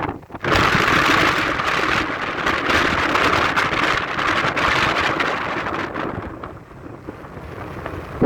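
Heavy rain driven by strong wind in a severe thunderstorm: a dense, steady hiss that eases off about six seconds in.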